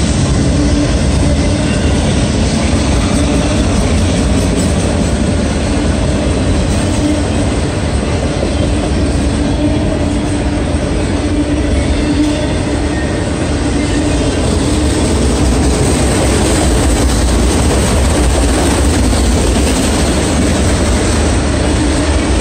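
Long freight train of autorack cars rolling steadily past, a loud continuous rumble and clatter of steel wheels on rail with a thin steady wheel squeal running through it.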